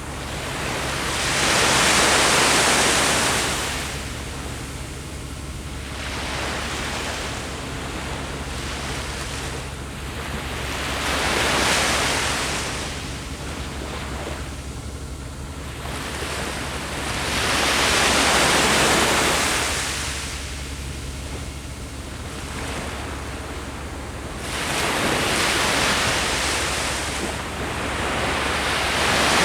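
Ocean surf: waves breaking and washing up the shore, each a rushing swell that builds and fades, one every several seconds, over a steady low rumble.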